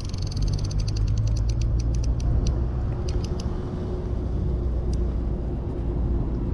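Baitcasting reel clicking in a quick, even run for about the first two and a half seconds, then a few single clicks, as a big catfish is played on the line. Underneath is a low, steady rumble of wind on the microphone.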